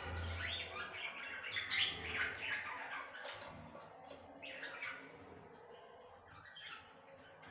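Budgerigars chirping and warbling, a busy chatter of quick calls for the first few seconds, then a few scattered chirps.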